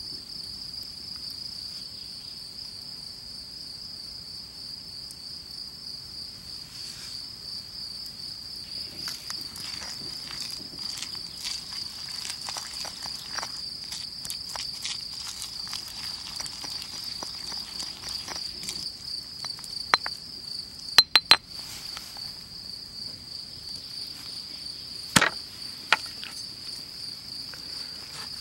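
Crickets chirring steadily and high-pitched in the grass. From about a third of the way in, a stone pestle grinds and scrapes mustard seeds in a granite mortar. A few sharp knocks come about two-thirds through, the loudest sounds here.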